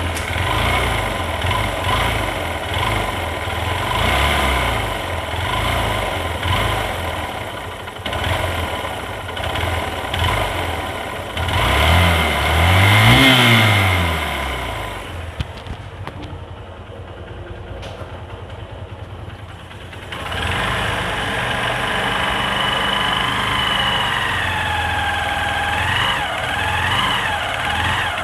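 Hero Hunk motorcycle's single-cylinder four-stroke engine running at idle, revved once about twelve seconds in with a rise and fall in pitch. It is quieter for a few seconds after the rev, then runs steadily again. This is the bad engine noise the owner complains of, which the mechanic suspects comes from weak compression, possibly a tappet fault.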